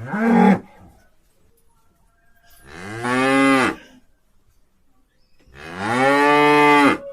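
Cattle mooing: the end of one call in the first half-second, then two long moos about three seconds apart, each swelling up and cutting off after about a second and a half.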